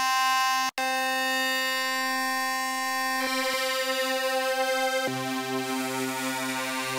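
1V/Oct The Centre Eurorack wavetable oscillator sounding a sustained synth drone from a Vital wavetable, its timbre changing as the knobs are turned. It cuts out for an instant just under a second in and turns brighter about three seconds in. About five seconds in a lower note joins, with a slow pulsing.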